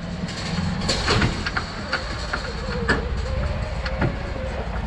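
2022 Polaris Ranger XP1000 Northstar UTV's twin-cylinder engine running slowly as the UTV creeps up onto a wooden trailer deck. Irregular knocks and clunks from the tires and trailer boards come every half second or so, with a brief whine about midway.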